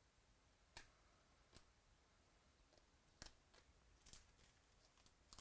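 Near silence broken by a handful of faint, sharp clicks and taps of trading cards being handled and shuffled.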